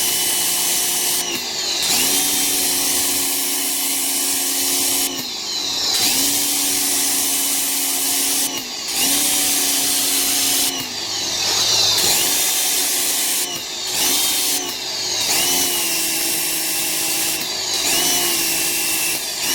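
Foting electric pressure washer running and spraying: a steady motor-and-pump hum under the hiss of the water jet. About seven times the spray stops for a moment and the hum dips in pitch, then recovers.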